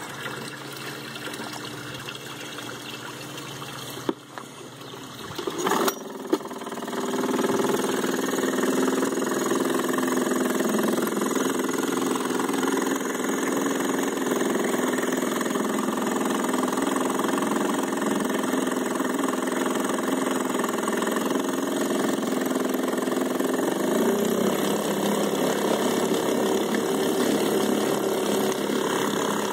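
Yamaha 2 hp single-cylinder two-stroke outboard starting up about six seconds in, then running steadily at idle with its propeller churning the water in a test barrel.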